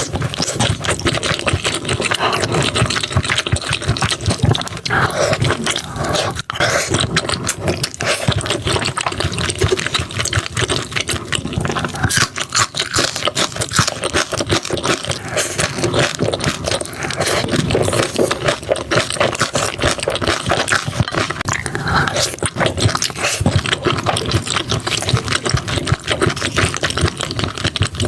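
Close-miked eating sounds: wet chewing, smacking and slurping of seafood, a dense, unbroken run of clicks and squelches.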